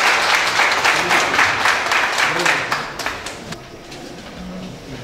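Audience applauding, the clapping dying away about three seconds in, leaving low voices talking.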